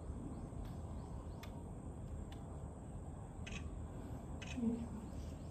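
Steady low background noise of visitors around the enclosure, with a few faint, soft clicks and a brief distant voice about four and a half seconds in.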